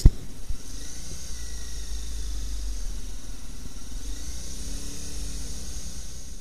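Motorcycle riding at low speed, its engine running under steady wind rumble on the bike-mounted camera's microphone, with a sharp knock right at the start.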